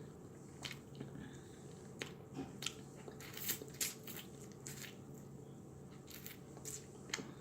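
A person chewing fried chicken with the mouth close to the microphone: faint, irregular wet smacks and crunches.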